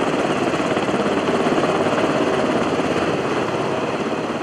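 F-35B Lightning II jet in a slow, near-hover landing approach: loud, steady jet noise with a rapid crackle, easing slightly near the end.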